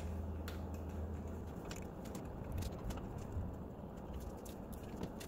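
Front brake caliper bolts being threaded in by hand: faint, scattered metallic clicks and handling noises at the caliper, over a low steady hum that stops about a second and a half in.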